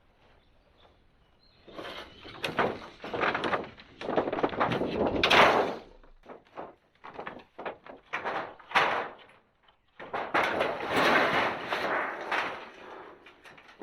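A sheet of roofing tin rattles and scrapes as it is handled, with sharp knocks, in three spells after a short silence. The loudest knocks come about five and nine seconds in.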